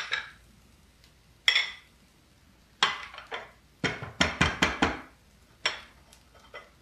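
Ceramic coffee cup turned upside down on a plate, rapped and knocked against it to loosen the fried rice packed inside. There is a single sharp clink, then a few together, then a quick run of about six louder, deeper knocks, and one more near the end.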